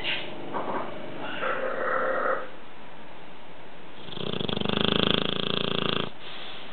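Dogue de Bordeaux snoring in its sleep: a softer rasping breath in the first two seconds, then a louder, rattling snore about four seconds in that lasts about two seconds.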